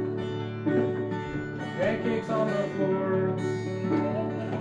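Acoustic guitar strummed, its chords ringing on.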